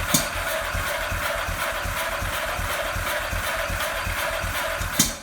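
Ducati 998 L-twin engine cranking on its electric starter without firing, a steady rhythmic churn that cuts off abruptly at the end. A sharp click comes shortly after the start and again just before it stops. The engine turns over well but won't catch: the no-start condition, despite fuel and spark.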